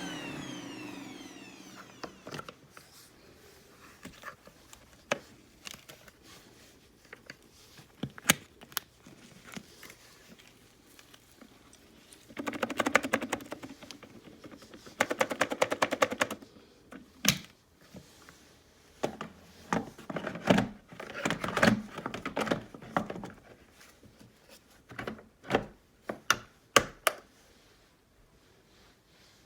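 Vacuum cleaner motor whining down in pitch as it stops. Then a long run of scattered plastic clicks and knocks, with three stretches of quick rattling, from the machine and its parts being handled.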